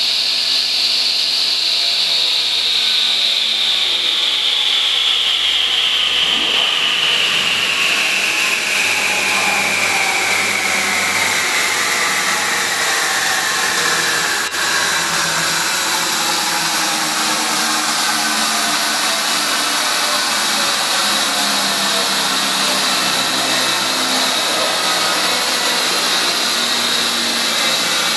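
Old combination table saw and spindle moulder running after being switched on: a high whine that slowly sinks in pitch over a steady rushing noise.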